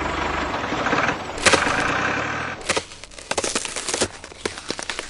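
A motor running steadily, then, about two and a half seconds in, giving way to a quick, irregular run of clicks and knocks.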